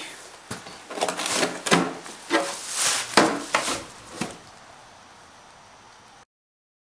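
A run of irregular short scuffs and rustles that dies away after about four seconds into a faint hiss, then cuts off to silence near the end.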